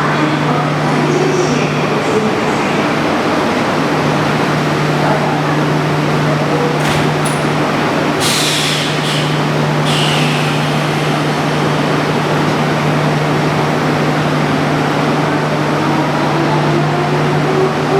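Electric commuter trains at a station platform: a steady hum under dense running noise, short hisses of air about halfway through, and a motor whine rising in pitch near the end.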